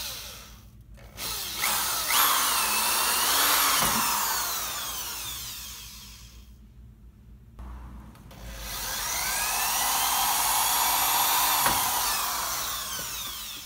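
Handheld electric drill boring a pilot hole, running in two long spells of about five and six seconds with a short pause between them, its motor pitch rising and falling as the trigger is squeezed and eased.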